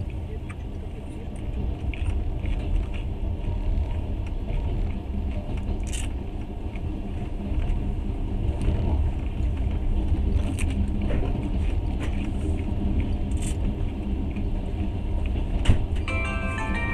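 Steady low rumble of a moving train heard from inside a passenger carriage, with occasional clicks and knocks from the wheels and running gear. Near the end a sharp knock is followed by music starting.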